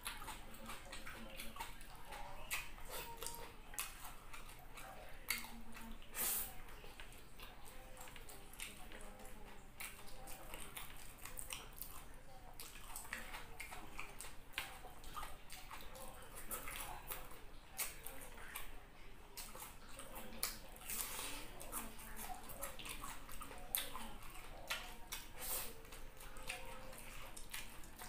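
Close-miked eating of fried tilapia and rice by hand: wet chewing and lip-smacking made up of many small, quick clicks, without a break.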